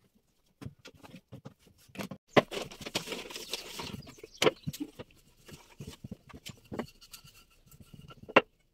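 Rolling pin working chapati dough flat on a wooden table: a rubbing, rolling noise for a couple of seconds, with scattered knocks of the pin and hands on the board, the sharpest about halfway and near the end.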